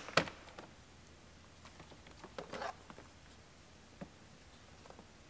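A few faint, scattered clicks and plastic rustles of dash switch wiring connectors being unplugged, with quiet room tone between them.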